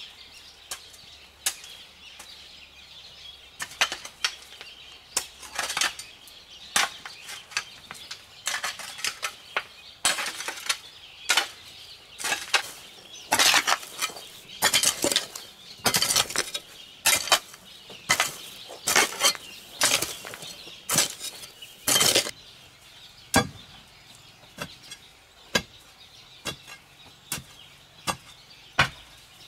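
A hoe and a steel digging bar chopping into hard, stony soil, with repeated strikes about one or two a second. Each stroke is a short scrape with a metallic clink as the blade hits earth and stones.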